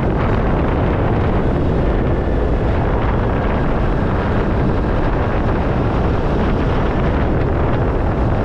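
Wind buffeting the microphone on a moving motorcycle, a steady rush with a strong low rumble, riding noise mixed in.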